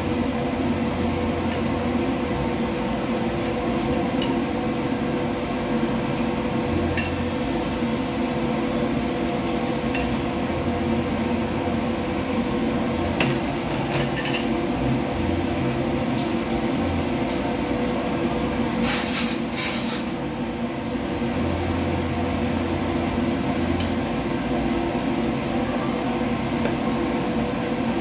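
Steady hum of kitchen machinery, with occasional light clinks of steel tongs against ceramic bowl and plate as toppings are placed on a bowl of lomi, and a brief scraping rush about two-thirds of the way through.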